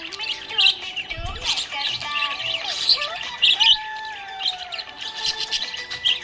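Budgerigars chirping and warbling: rapid short high chirps mixed with longer gliding, wavering notes.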